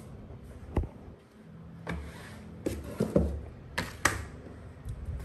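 Scattered light taps and knocks from kitchen handling: hands working a sheet of homemade pasta dough on a floured stainless-steel worktop and reaching into a plastic flour tub, about half a dozen separate clicks.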